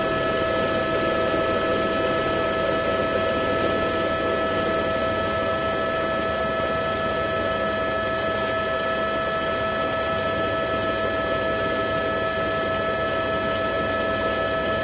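A steady hum made of several fixed tones over an even hiss, unchanging throughout.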